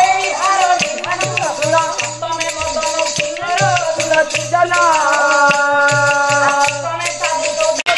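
Folk dance music with a wavering, sliding melody line over regular low barrel-drum thuds and a steady jingling rattle. The music cuts off abruptly near the end.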